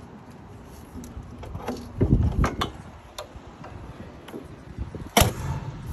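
A few knocks and clicks of handling, then one loud, sharp slam about five seconds in: the rear engine hood of a Kubota KX057-5 excavator being shut.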